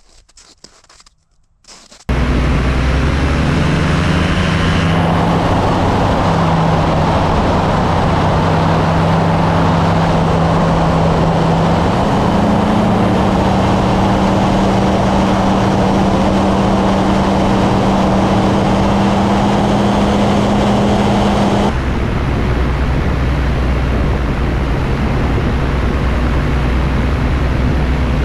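Kolb Firefly ultralight's engine and propeller running steadily at high power, with heavy wind noise, starting suddenly about two seconds in. Its pitch rises a little around the middle, and near the end the sound turns deeper and duller.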